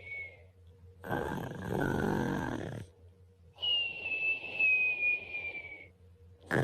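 A sleeping man snoring: a noisy snore about a second in, then a high, slightly falling whistle on the next breath, and another snore starting near the end.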